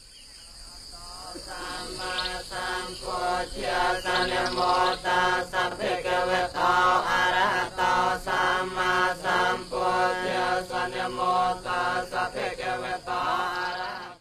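Buddhist monks chanting together in a rhythmic recitation, fading in over the first couple of seconds, with a steady insect drone underneath.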